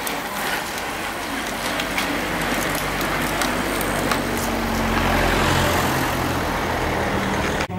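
A pack of road racing bicycles passing close by, a rising rush of tyre and air noise with scattered clicks, and a motor vehicle's engine running behind them from about four seconds in. The sound cuts off suddenly just before the end.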